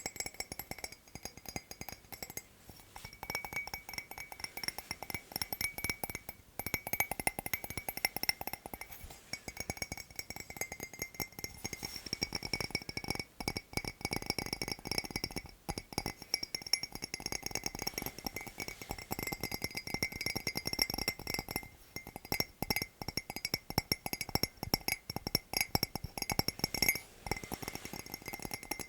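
Fingers tapping fast and unevenly on hard items that ring with a clinking, glassy tone.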